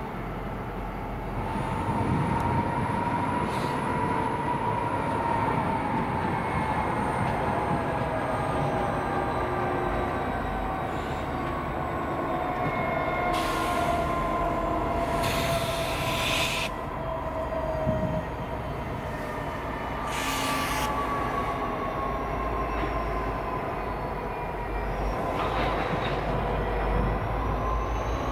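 A pair of EMD SD50-2 diesel locomotives pulling tank cars at low speed through curved yard track: a steady diesel rumble under long, drawn-out wheel squeal from the curves. Several short hissing bursts come through as they go.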